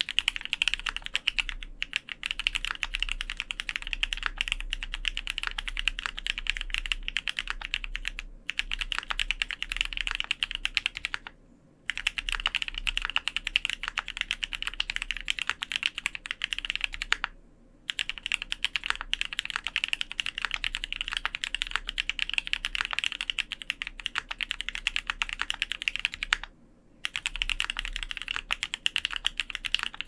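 Fast, continuous typing on an F1-8X custom mechanical keyboard with Krytox 205g0-lubed Gateron Cap V2 Gold Yellow linear switches, GMK keycaps, an aluminium plate and Poron case foam: a dense run of keystrokes. The typing breaks off briefly near 12, 17 and 27 seconds in.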